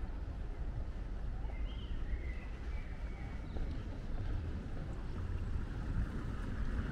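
Wind rumbling on the microphone over open-air ambience, with a few faint, wavering high calls about two seconds in.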